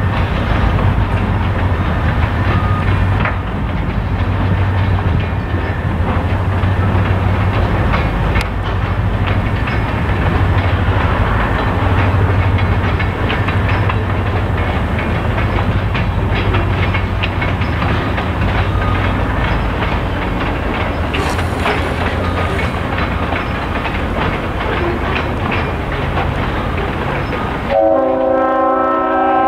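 Freight train of covered hopper cars rolling across a steel girder overpass: a steady rumble of wheels with a low hum and scattered rail clicks. Near the end a train horn sounds a steady chord.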